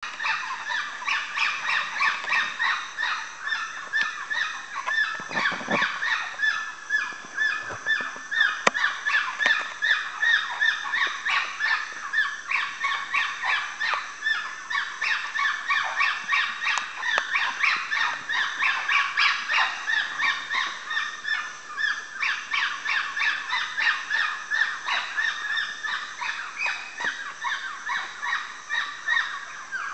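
Woolly monkeys calling without pause: a dense, steady run of short, high calls, about three a second.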